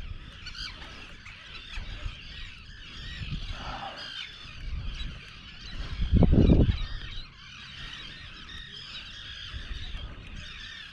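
Gulls calling over the water, a busy chorus of overlapping calls, with a brief low rumble about six seconds in.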